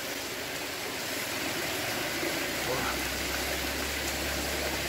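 Heavy rain falling, a steady even hiss, with a low steady hum coming in about three seconds in.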